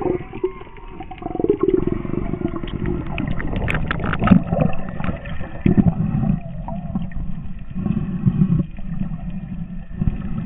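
Humpback whale song heard underwater: a series of low moans and grunts, some wavering higher calls, and a run of rapid clicking pulses around the middle.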